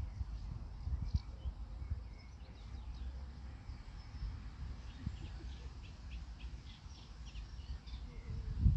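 Small birds chirping, with a quick run of repeated chirps about six seconds in, over a steady low rumble. A louder low rumble or bump comes at the very end.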